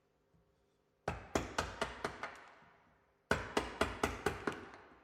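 A mallet striking the handle of a bevel-edged chisel to chop out waste wood: two quick runs of sharp knocks, about four or five blows a second, the first starting about a second in and the second just past the middle.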